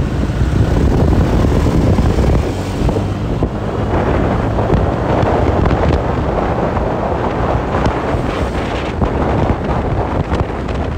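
Wind buffeting the microphone while moving along a road in traffic, over a steady low rumble of vehicles and tyres.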